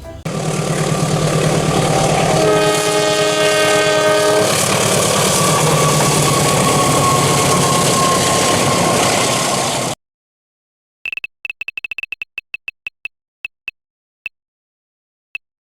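Diesel train running, with a two-second chord-like horn blast a couple of seconds in; the sound cuts off abruptly at about ten seconds. Then comes a run of sharp ticks that get further apart and stop, a spin wheel's pointer clicking to a halt.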